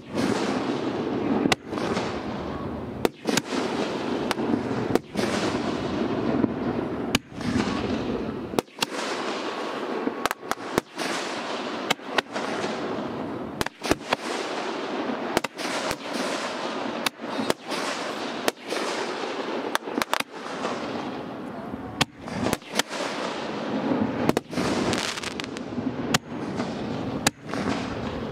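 Aerial fireworks firing in a rapid sequence: sharp bangs about one or two a second, each trailing off in a fading hiss as the next burst comes.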